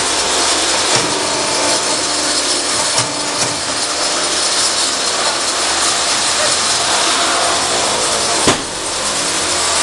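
Automatic paving-block machine running: a loud, steady mechanical clatter with a few sharp knocks, one about a second in, one about three seconds in and one near the end.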